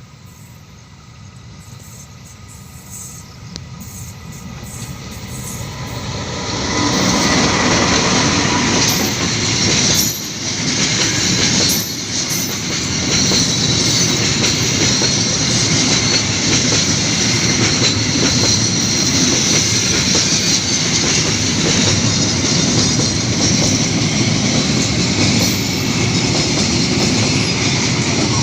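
A train approaches, growing steadily louder over the first seven seconds, then passes close by. It makes a continuous rumble and the hiss and clatter of its wheels on the rails. It is moving slowly through a section of track under repair.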